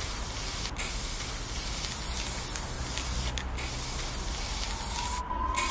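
Aerosol spray-paint can hissing in long sprays, broken by three brief pauses. A slowly rising whine begins near the end.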